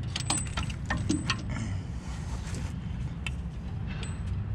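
Light metallic clinks and rattles of a hand tool and the shock absorber's mounting hardware being handled, a quick run of them in the first second and a half and a couple more near the end, some with a thin ringing note.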